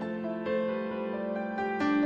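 Slow background piano music, with new notes struck about half a second in and again near the end.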